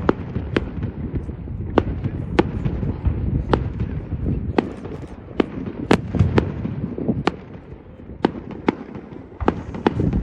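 Fireworks going off: more than a dozen sharp bangs and cracks at irregular intervals over a continuous low rumble of bursts, thinning briefly about eight seconds in.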